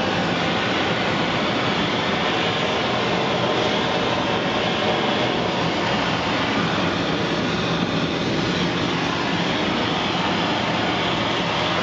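Propane torch burning steadily, a constant, very noisy rush of flame as it heats a copper boiler for silver soldering.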